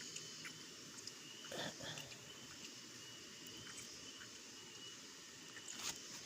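Faint outdoor ambience with insects chirring steadily at a high pitch, broken by a few soft clicks and knocks. Two of these knocks are louder, one about a second and a half in and one near the end.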